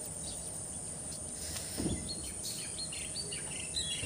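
Small birds chirping in short high notes, mostly in the second half, over a steady high-pitched insect drone. There is a brief soft low thump about two seconds in.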